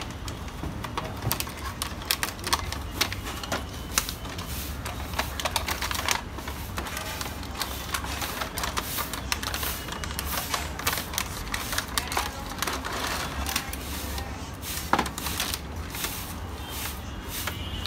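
Cardboard box and clear plastic packaging of an action camera being opened and handled: irregular clicks, taps and crinkling rustles, over a steady low hum.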